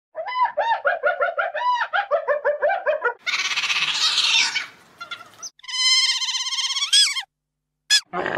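Spotted hyena giggling: a fast run of rising-and-falling yelping notes for about three seconds. Then otter calls: a harsh, hissing call, then a high, wavering squeal.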